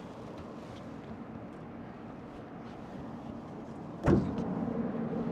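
Steady mechanical hum of a rooftop HVAC unit running. About four seconds in there is a sudden loud clunk, and after it the hum is louder.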